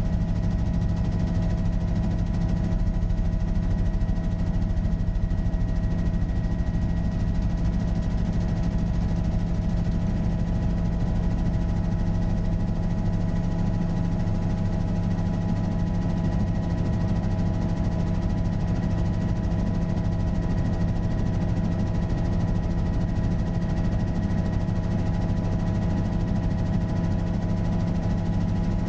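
Helicopter in flight, heard from inside the cockpit: a steady drone of the engine and main rotor, with several constant whining tones over it.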